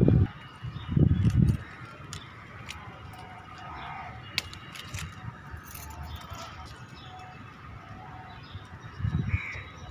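Two brief low rumbles on the phone's microphone, about a second in and near the end, over a quiet steady outdoor background with a few faint clicks.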